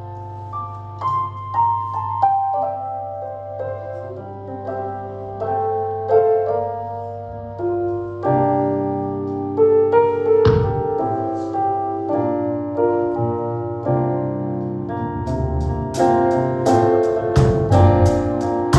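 Worship band instrumental: keyboard playing sustained chords over a steady low bass note, with drums and cymbals joining about 15 seconds in.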